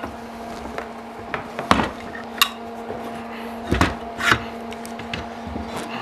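Clanks and knocks of a metal circular saw being handled and set about on a wooden workbench: a handful of separate knocks, with a steady low hum underneath.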